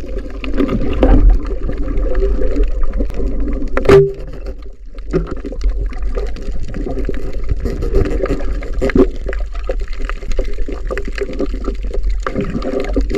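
Muffled underwater churning and gurgling of water around a diver's camera, with one sharp knock about four seconds in and scattered smaller clicks.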